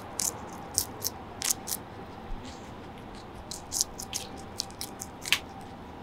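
Guinea pig biting and chewing a leaf of greens held out by hand: quick crisp crunches at an irregular pace, over a steady background hiss.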